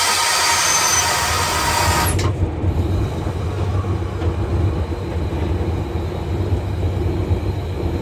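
ZCU-30 diesel-electric locomotive heard from inside its cab, the engine running with a steady low rumble as the train rolls slowly. A loud hiss over it cuts off sharply about two seconds in.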